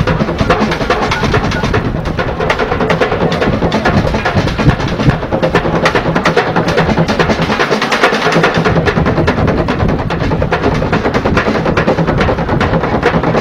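Bucket drumming: fast, dense stick strikes on plastic buckets, hollow plastic canisters and metal pans, played as a continuous driving rhythm.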